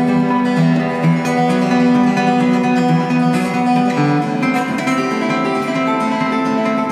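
Solo steel-string acoustic guitar played fingerstyle, plucked notes ringing over one another, with the bass notes changing about four seconds in.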